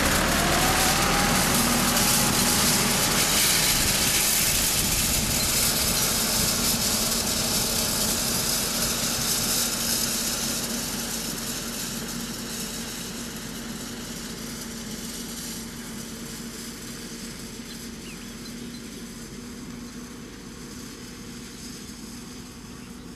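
Farm tractor's diesel engine running steadily as it tows a wheel hay rake close past, then fading gradually as it drives away.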